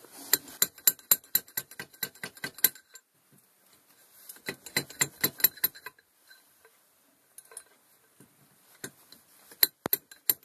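Quick, ringing metal-on-metal hammer strikes, about five a second, on a home-made steel tool driving the old seal out of a tractor input shaft housing. There are two runs, about a dozen strikes then about eight, and a few scattered strikes near the end, as the seal starts to come loose.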